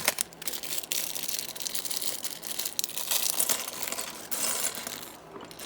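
Plastic bag of LEGO pieces crinkling as it is handled and opened, with small clicks from the plastic parts inside.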